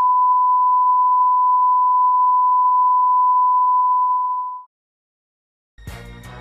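Broadcast line-up test tone, a single steady 1 kHz beep played with colour bars, fading out a little after four seconds. After about a second of silence, music starts near the end.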